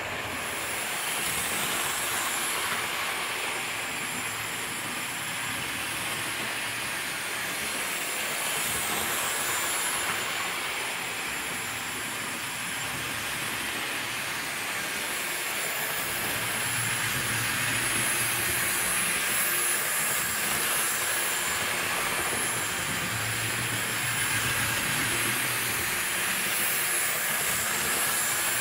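Hornby OO-scale Flying Scotsman model locomotive running on its track: a steady electric-motor whine with wheel and rail noise, getting a little louder about halfway through.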